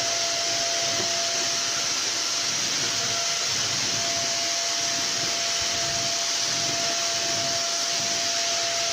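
Hoover vacuum cleaner running steadily: an even rushing hiss with a constant whine from the motor.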